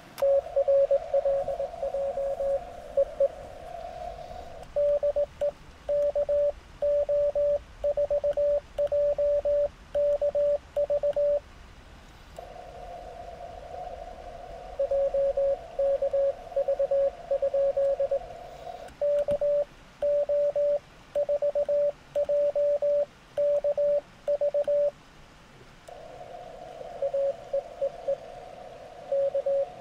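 Morse code (CW) tones from a Recent RS-978 transceiver, keyed on and off in dots and dashes. Stretches of received CW sit faintly in a narrow band of receiver hiss. They alternate with clean, hiss-free bursts of the operator's own keyed sidetone, sent with a paddle about five seconds in and again about nineteen seconds in.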